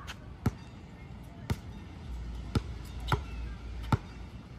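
Basketball dribbled on an outdoor hard court: about six sharp bounces at uneven intervals. A low rumble starts about two seconds in.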